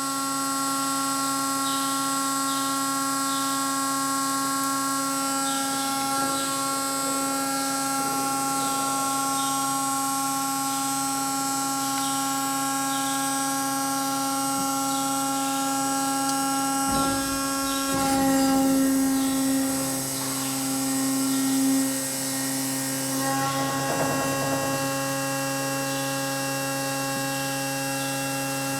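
Danobat RTM 1600 surface grinder running: a steady hum made of several fixed tones. About two-thirds of the way through, a rumble comes in for a few seconds and the pitch of the hum shifts.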